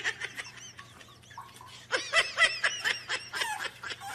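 A person laughing off-screen in quick, short, high-pitched bursts. A few come early, then a lull, then a denser run of giggles from about two seconds in.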